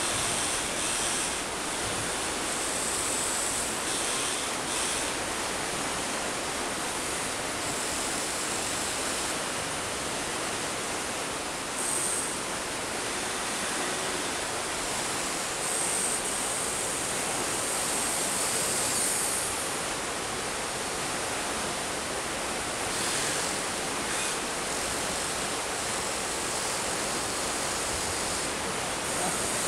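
Steady rushing noise, with a faint high whine that comes and goes several times as the Huina 1593 RC excavator's electric motors move its arm.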